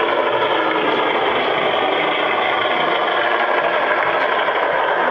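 Large-scale model rail tractor locomotive running, pulling a loaded log car: a steady, even engine-like hum and whir with no pauses.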